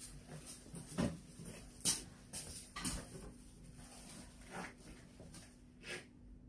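About half a dozen separate crisp crackles and snaps, a second or so apart, from hands picking over fresh coriander stems and handling thin plastic produce bags.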